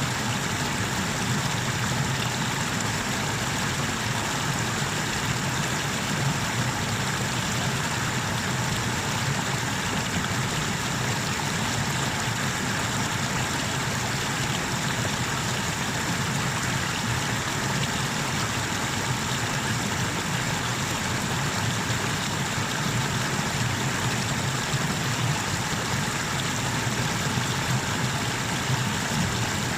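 Water rushing steadily over the small cascades of the Tanew river, an even, unchanging roar of falling water.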